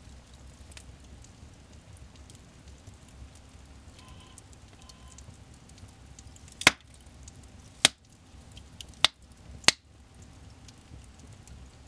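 Wood logs burning in a fireplace: a low, steady crackle, broken in the second half by four loud, sharp pops from the burning wood.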